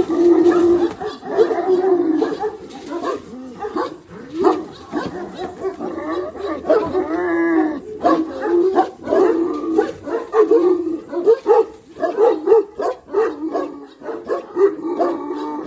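Year-old Central Asian Shepherd dogs barking and vocalising throughout, with a drawn-out, higher whine about seven seconds in.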